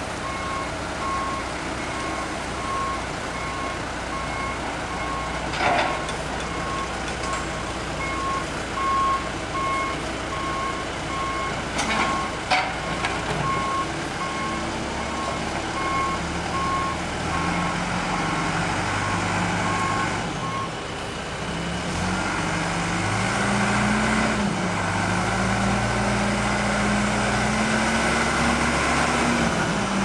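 John Deere 310SG backhoe's reverse alarm beeping steadily, about once a second, over its diesel engine as it backs down off a lowboy trailer, with a few sharp metal clanks along the way. The beeping stops about two-thirds of the way through, and the engine then revs up and down as it moves off.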